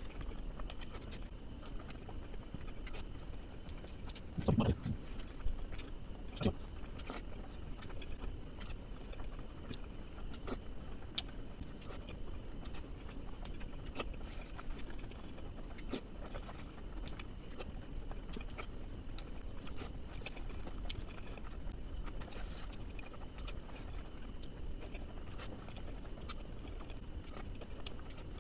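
Close-miked chewing and wet mouth clicks of a man eating steamed momos (dumplings), with a short, louder low sound about four and a half seconds in.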